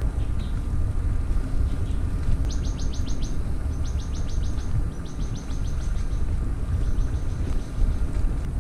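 A bird sings four short trills of rapid high chirps, about ten a second, in the middle of the stretch. Under it runs a steady low rumble of wind on the microphone and tyres on the dirt trail as the mountain bike rolls along.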